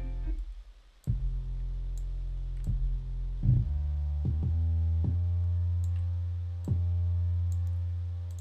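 Synthesized 808 bass line looping from a sequencer: long, low, sustained notes that change pitch every second or so. Playback cuts out briefly near the start and comes back about a second in, with a few faint clicks over it.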